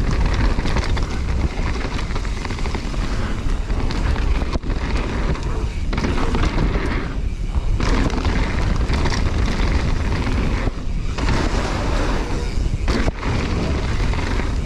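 Mountain bike rolling fast down a packed-dirt trail: steady low wind rumble on the action camera's microphone over the noise of the tyres on the dirt.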